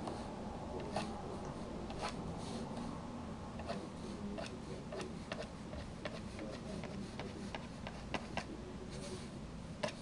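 Irregular light clicks and taps of a pen stylus on a graphics tablet, over a faint low hum.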